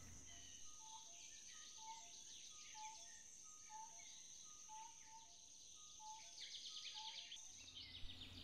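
Faint nature ambience: a steady high insect drone with patches of fast insect trills, and a bird repeating short two-note calls about once a second.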